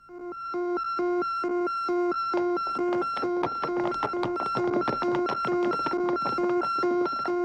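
Electronic alarm signal beeping: short low and high tones alternating a few times a second, sounding as a call-out for officers after an alarm button is pressed.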